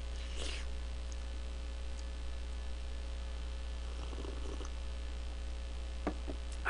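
Steady low electrical hum on the recording, with faint small eating noises and a quiet sip from a cup about four seconds in.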